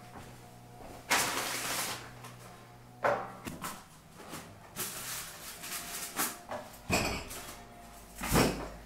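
Kitchen handling noises: a metal baking tray and cardboard food packets being moved, with a scraping rasp about a second in, then a series of knocks and rustles, the loudest near the end.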